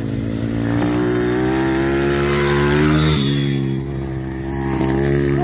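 Motorcycle engine running hard on a race track. Its pitch climbs for about two seconds, then drops sharply about three seconds in and carries on lower.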